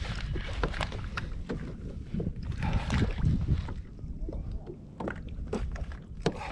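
Wind buffeting the microphone and water sloshing against a plastic sit-on-top fishing kayak, with many irregular light knocks and clicks.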